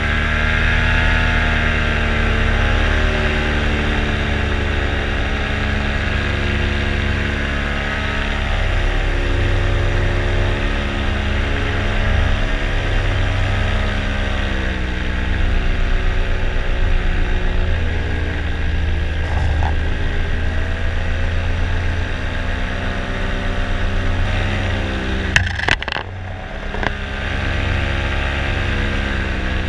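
Paramotor engine and propeller running steadily in flight, its pitch slowly rising and falling as the throttle changes, over a low rumble. A few sharp knocks come near the end.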